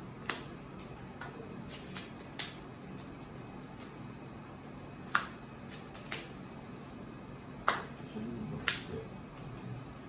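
Sleeved trading cards being handled and set down on a playmat: a scattering of sharp clicks and slaps, loudest about five seconds in and again near eight seconds.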